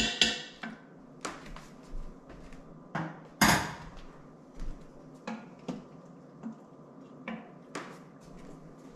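A spoon knocking against the Instant Pot's steel inner pot, then scattered clinks and knocks of cookware being handled, about eight in all, the loudest about three and a half seconds in.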